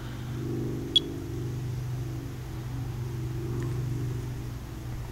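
Monitor 4 Geiger counter chirping: one sharp high chirp about a second in and a fainter one later, each marking a single detected radiation count. Under it runs a steady low drone.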